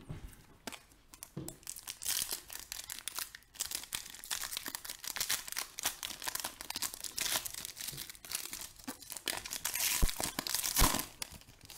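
Foil trading-card pack wrapper being torn open and crinkled in the hands, an irregular crackling rustle that swells near the end, with a couple of soft bumps.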